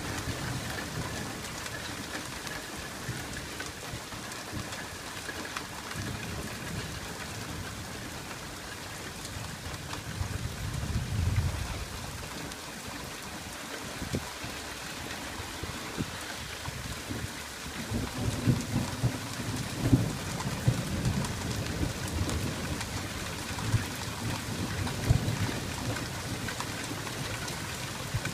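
Steady rain falling on wet pavement, with low rolls of thunder. One rumble swells about ten seconds in, and a longer spell of rumbling with a few sharper claps comes in the last third.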